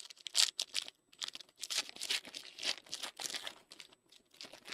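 A football trading card pack's wrapper being torn open and crinkled by hand, in a run of crackly tearing and rustling bursts.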